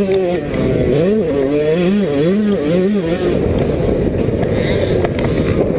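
Yamaha YZ125 two-stroke motocross engine heard close up from on the bike, its pitch rising and falling over and over as the throttle is worked. About three seconds in the engine's pitch drops out under a rough, rushing noise.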